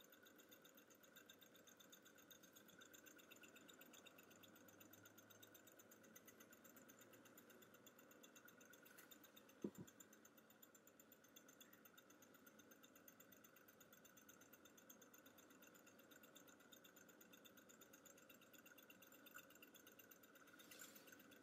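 Faint, rapid, even ticking of a small K-Dee Steam alpha-type Stirling hot-air engine running steadily, its flywheel spinning. A single short low thump about ten seconds in.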